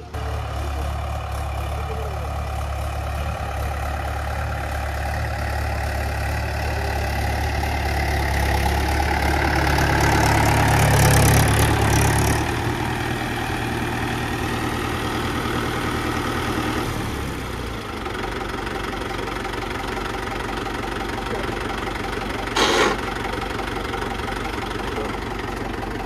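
Mahindra 475 DI tractor's diesel engine running as it ploughs. It grows louder as it comes near and is loudest about 11 seconds in, then runs more quietly. A short, sharp noise comes about 23 seconds in.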